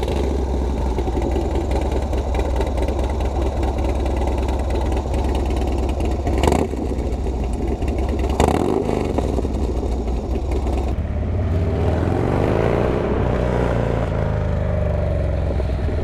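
A stock 2006 Harley-Davidson Dyna Low Rider's Twin Cam 88 V-twin running just after being started, with two quick throttle blips about six and a half and eight and a half seconds in. Over the last few seconds the engine note rises and falls as the bike pulls away and is ridden off.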